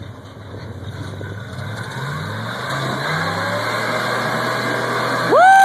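Rock-crawler buggy engine revving under load as it climbs, the pitch rising and the sound growing steadily louder. Near the end a loud, high yell cuts in over it.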